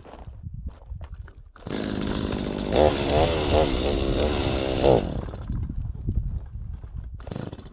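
Chainsaw engine catches about one and a half seconds in and revs up and down several times, then drops away about five seconds in as the saw runs out of gas.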